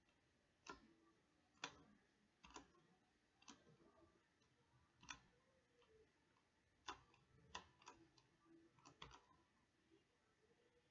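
Faint computer mouse button clicks, about a dozen at uneven intervals, several close together near the end.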